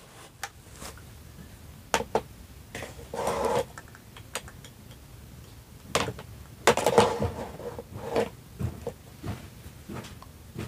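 Plastic toy kitchen pieces being handled: scattered light clicks and knocks of plastic cups, dishes and play food being moved and set down, with a short scraping rustle about three seconds in and a flurry of clatter around seven seconds.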